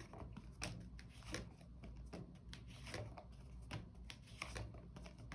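Tarot cards being handled: faint, scattered soft slaps, clicks and rustles of cards over a low steady room hum.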